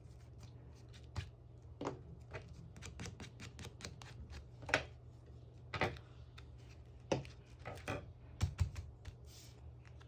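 Irregular taps, clicks and light rustles of stationery being handled on a desk during diary decorating, a few of them sharper knocks, over a steady low hum.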